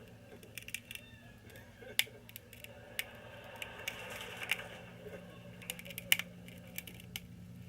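Scattered sharp clicks and taps of small tools working on a Samsung Galaxy S5 phone during a screen replacement, over a steady low hum.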